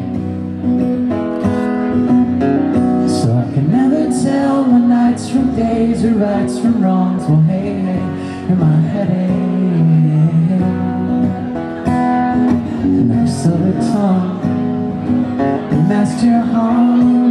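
A male singer singing over his own strummed acoustic guitar, performed live.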